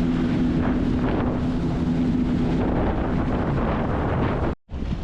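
Sea-Doo personal watercraft engine idling with a steady low hum, under wind buffeting the microphone. The hum fades about three seconds in, leaving the wind noise, and the sound cuts out for a moment near the end.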